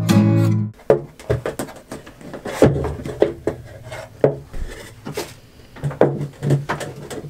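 Acoustic guitar music cuts off under a second in. It is followed by a wooden shelf board being pushed and worked into a cupboard opening: irregular knocks, bumps and wood rubbing on wood.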